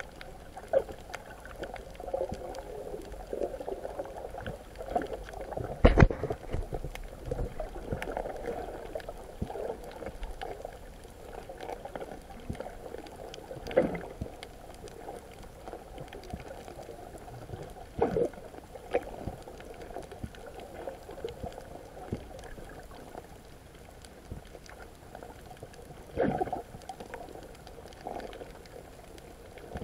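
Muffled underwater water noise heard through a submerged camera's waterproof housing: steady bubbling and gurgling, broken by a few dull knocks, the loudest about six seconds in.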